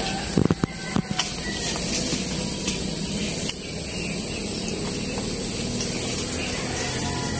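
Steady outdoor background hiss with a thin high constant tone, broken by a few sharp clicks and knocks in the first second and one more about three and a half seconds in.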